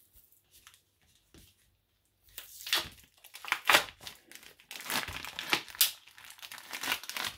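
Plastic film being peeled back off a vacuum-sealed plastic tray, crinkling and tearing. A few small ticks at first, then steady crackling from about two seconds in.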